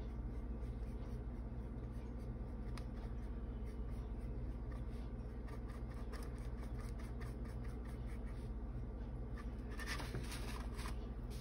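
Small paintbrush making short, faint scratching strokes on a painted wood panel, a little louder and denser near the end, over a steady low hum.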